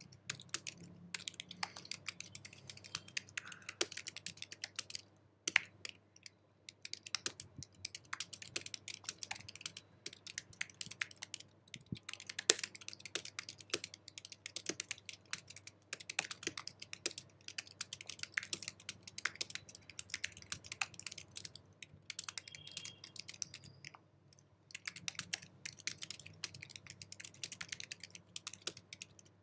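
Fast typing on an Apple keyboard: a rapid, uneven run of light key clicks, broken by a couple of short pauses about five seconds in and again near the end.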